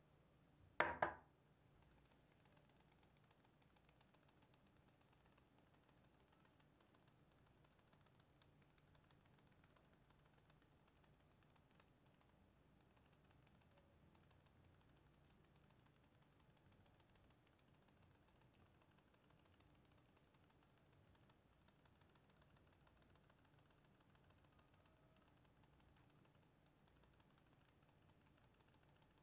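Faint, rapid, irregular tapping of a small handheld mesh sieve as powdered sugar is dusted over piped dacquoise batter. A sharp double knock about a second in.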